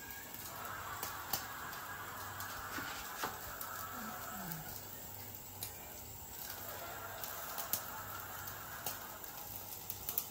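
Whole fish grilling on a wire rack over a gas burner flame, crackling with scattered sharp pops over a steady low hiss.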